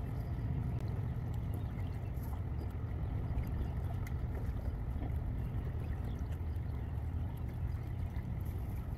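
Wind buffeting the microphone: a steady low, fluctuating rumble with a few faint ticks.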